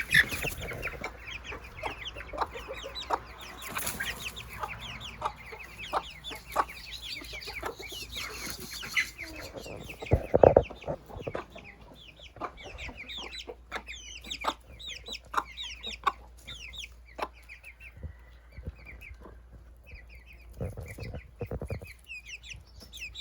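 A flock of chickens clucking, with many short, high, falling peeps running through it and a louder, lower burst about ten seconds in.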